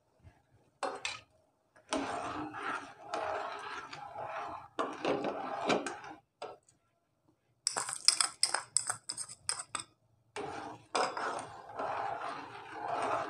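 Metal spoon stirring and scraping in a steel pan of boiling water, in a few spells with pauses between, and a quick run of sharp clinks against the pan about two-thirds of the way through.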